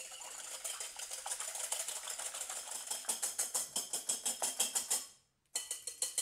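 Wire balloon whisk beating egg whites by hand in a glass bowl, its wires clicking and scraping against the glass in a fast, steady rhythm of several strokes a second. The beating stops briefly about five seconds in, then starts again.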